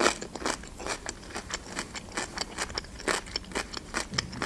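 A person chewing a bite of fresh cucumber with the mouth closed: a quick, uneven run of small crunches and wet mouth clicks.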